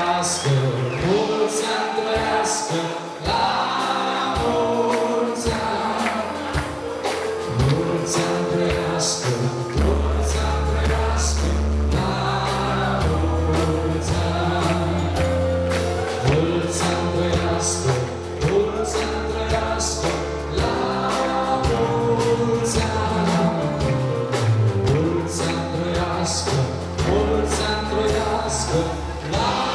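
Loud music played over a sound system: a choral track with sung voices and percussion, a deep bass line coming in about ten seconds in.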